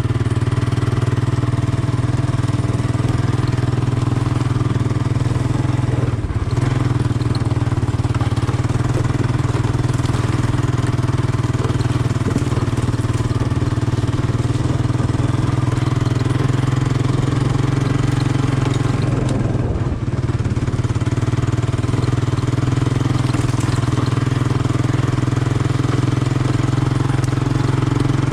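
Honda ATC 200M three-wheeler's single-cylinder four-stroke engine running at a steady speed, with brief small dips about 6 seconds in and about 20 seconds in.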